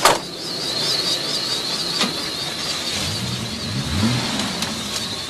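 A car door shuts with a sharp slam, then the car's engine revs up, rising in pitch about three seconds in, as the car moves off.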